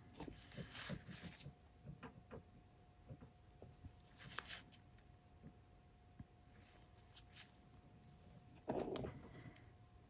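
Near silence: faint room tone with a steady low hum and a few soft, scattered handling noises.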